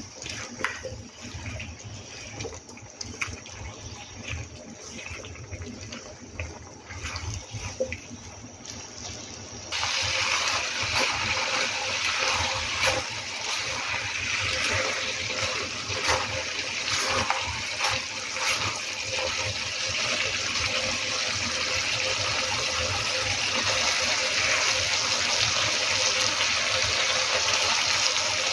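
A spatula stirs and taps vegetables in a nonstick wok with scattered light clicks. About ten seconds in, a loud, steady hiss of sizzling food in the pan starts suddenly and keeps going.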